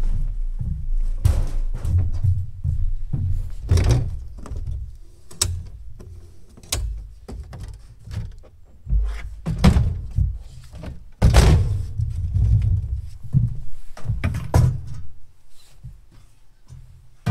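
Irregular thunks and knocks of equipment being moved and set down on a wooden deck, over a low rumble. A hand truck bumps across the deck boards, and a folding metal table and a large stainless stockpot are handled and set down.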